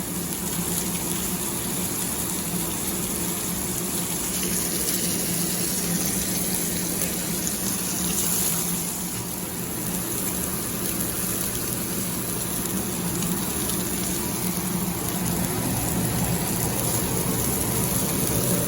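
Rack of lamb searing, with a steady, continuous sizzle and a low steady hum beneath it.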